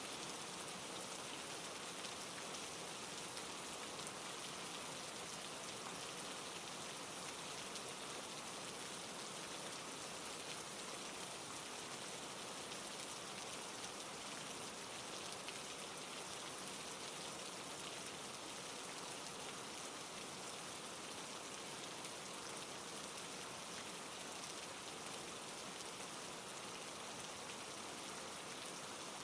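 Steady, even rain falling, with a dense patter of drops on a surface and no change in strength.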